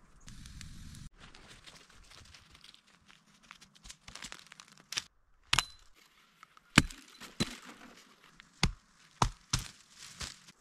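Dry wood cracking: a string of sharp, irregular cracks in the second half, over a soft rustle and crunch of dry fallen leaves.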